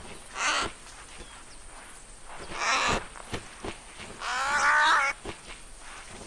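Cartoon creature's cries: two short, rasping calls, then a longer, wavering pitched cry about four seconds in.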